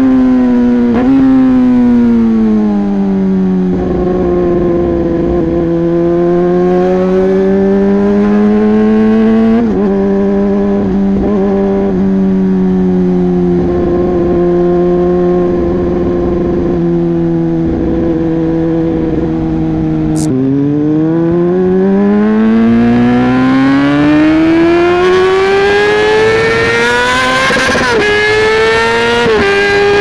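Yamaha YZF-R6's inline-four engine through an SC-Project exhaust, heard from on the bike: the note falls off as the throttle closes, holds at a steady cruise with a couple of brief dips, then about two-thirds through drops sharply with a click and climbs in one long rising rev as the bike accelerates hard. Wind rush grows with the speed.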